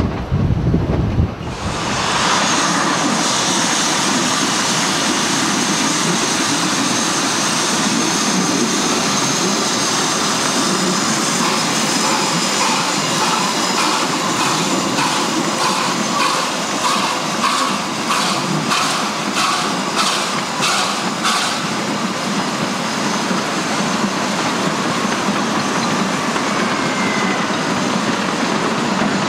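Narrow-gauge steam train of a tank locomotive and wooden carriages running steadily, with the rumble and rattle of wheels and running gear. From the middle on there is a regular beat of about two strokes a second.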